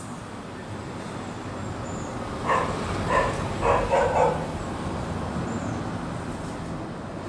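A dog barks about five times in quick succession, a little over two seconds in, over a steady background hum of traffic.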